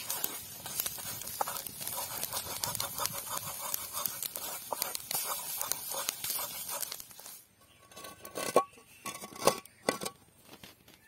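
Egg frying in oil in a blackened wok: a steady sizzle full of small crackles, with a wooden spatula scraping the pan. About seven seconds in the sizzle gives way to a few sharp knocks.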